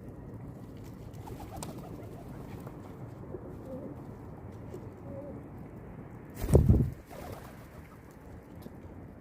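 Pigeons cooing softly over a steady low background. About two-thirds of the way through there is a loud, low, rumbling burst lasting about half a second.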